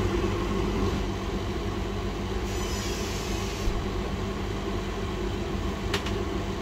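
Hot air rework station blowing steadily, a continuous hum with an airy hiss, while a regulator is desoldered from a laptop motherboard. A brief higher hiss comes about two and a half seconds in, and there is a sharp click near the end.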